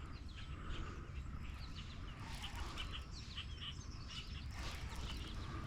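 Faint, scattered chirps of small birds over a steady low background rumble.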